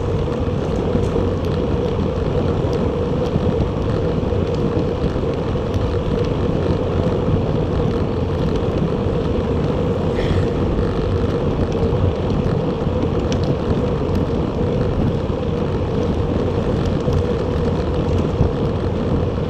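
Steady wind rush on the microphone and road and tyre noise from a Bacchetta Corsa recumbent bicycle riding at speed, with a steady hum running through it.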